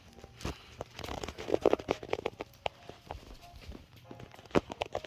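Cockatiels pecking and tearing into paper-wrapped treat packages and cardboard tubes: irregular crackling and rustling with sharp beak taps, one loud tap near the end.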